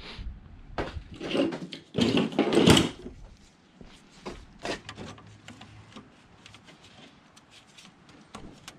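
Metal hand tools clattering in a plastic tool bin as a wrench and socket are picked out, loudest about two seconds in. This is followed by scattered light metal clicks and taps.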